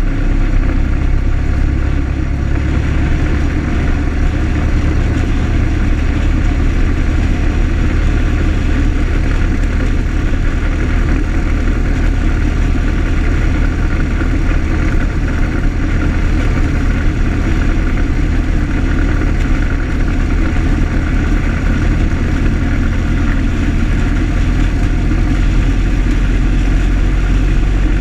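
1925 Ford Model T's four-cylinder side-valve engine running steadily as the car drives along at road speed, with road and wind noise.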